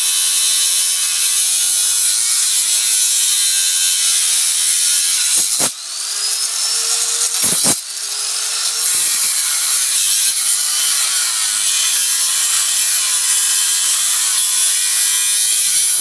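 Angle grinder with a cutting disc grinding through the metal of an old hard drive: a steady, harsh, high-pitched screech. Twice, around six and eight seconds in, the cutting noise drops out briefly and the motor's whine rises in pitch, then the grinding resumes.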